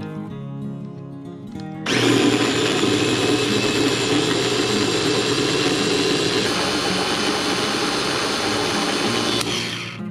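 Small electric food processor running steadily as it blends carrot leaves, walnuts, garlic and olive oil into a paste. It starts suddenly about two seconds in and stops just before the end.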